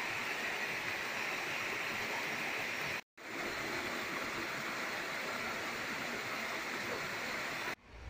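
Steady rush of falling water from a small waterfall and a shallow stream tumbling over rocks, broken by a brief dropout about three seconds in and cut off just before the end.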